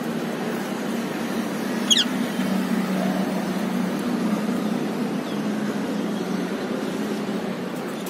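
Steady low background hum throughout, with a single short, shrill rose-ringed parakeet call sweeping downward about two seconds in.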